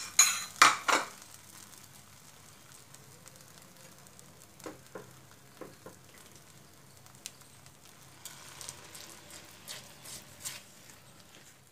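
Pistachio paste frying faintly in ghee in a nonstick pan on a low flame, a light sizzle, after a few sharp knocks at the start. From about three-quarters of the way in, a silicone spatula stirs and scrapes the paste across the pan.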